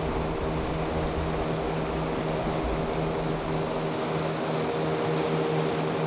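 Steady drone of a distant motorboat's engine over a constant high hiss.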